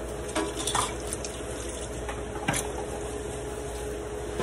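Steady kitchen hiss from ripe plantains frying in oil on a lit gas burner, with a faint steady hum. A few short clatters and knocks from utensils or handling stand out about half a second to a second in and again about two and a half seconds in.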